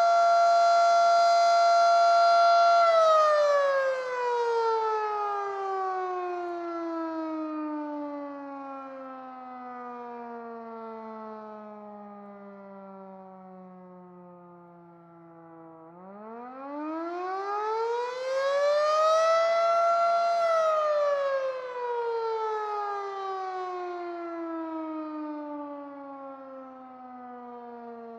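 Federal Sign & Signal Model 7 electromechanical siren sounding one steady tone at full speed, then winding down slowly in pitch for about thirteen seconds. About sixteen seconds in it is powered up again and rises back to full pitch within four seconds, then winds down once more: its on-off test cycling.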